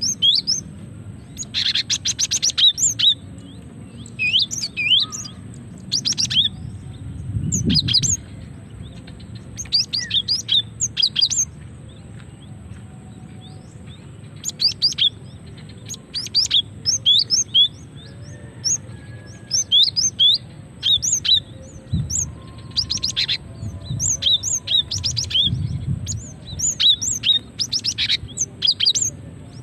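Female cinereous tit (gelatik batu) calling. Clusters of short, sharp chirps and quick chattering trills come every second or two. This is the female's call to a male, used as a lure.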